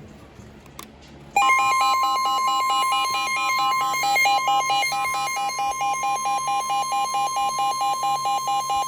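Weather radio alert tone: a steady tone, the 1050 Hz warning alarm tone, begins about a second and a half in. A rapid two-pitch warble plays over it, alternating several times a second, and signals a severe weather warning about to be broadcast.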